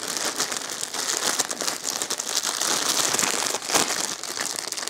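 Thin clear plastic poly bag crinkling continuously as it is handled and pulled open, with one louder crackle a little before the end.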